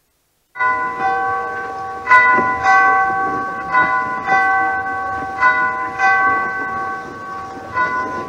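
Church bells ringing in an old film soundtrack: a peal of overlapping strikes that starts suddenly about half a second in, each new strike sounding over the ringing of the last.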